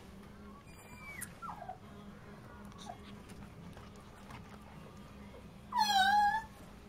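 Puppy whining: a few short, faint falling whimpers about a second in, then one louder whine lasting under a second near the end.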